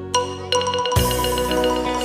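Music: a melody of bright struck, mallet-like notes, with a quick run of repeated notes about half a second in, and a fuller accompaniment with a low bass coming in about a second in.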